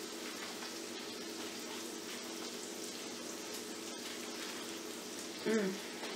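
Steady crackling sizzle of food frying in a pan on the stove. About five and a half seconds in, a short, pitched voice sound cuts in briefly.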